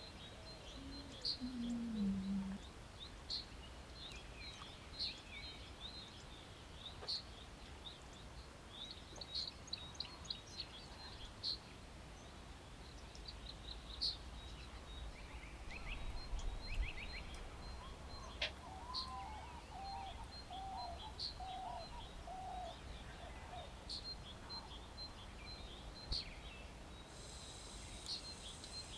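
Outdoor ambience of birds calling: short high chirps every second or two, with a run of lower repeated notes about two-thirds of the way through, over a steady low rumble.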